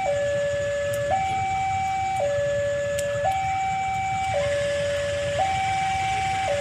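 Electronic two-tone warning siren sounding steadily, switching between a lower and a higher note about once a second, over a low rumble.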